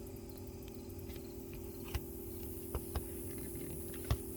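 A steady low hum with a few faint, light clicks and taps, as of a phone or camera being handled and set in place.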